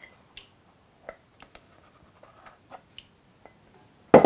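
Faint scraping and small ticks as a thick malt mash is scraped out of a bowl into a stainless-steel mixing bowl, then one sharp knock near the end with a brief metallic ring.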